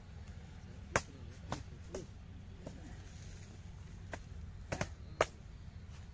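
Long-handled digging hoes striking packed earth while a water channel is dug, about six sharp irregular chops, the loudest about a second in and near the end, over a steady low rumble.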